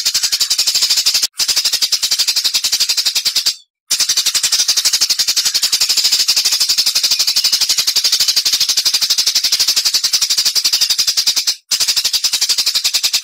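Songbird giving a long, fast, high-pitched rattle of sharp chips, the rapid 'tembakan' (shooting) type of call prized in competition birds, broken by three brief pauses.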